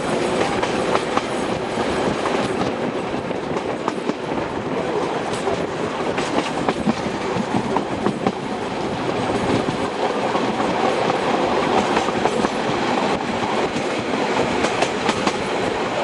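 Passenger train running, heard from aboard a carriage: a steady rumble with the wheels clicking on the rails throughout.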